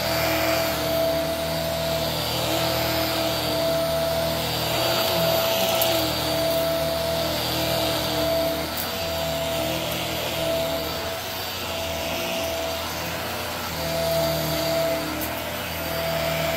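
Hart upright vacuum cleaner running steadily with a constant motor whine, pushed back and forth over a rug pile carpet, its loudness swelling and easing gently with the strokes.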